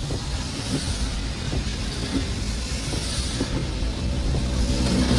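Car driving in the rain: a steady low rumble of engine and road with an even hiss of rain and wet tyres over it.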